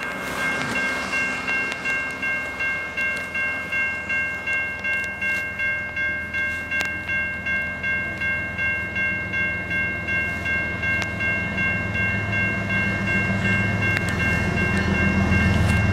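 Railway level-crossing bell ringing steadily, about two strokes a second, as the signals flash and the gate comes down. In the last few seconds the low rumble of an approaching CN freight locomotive grows louder under the bell.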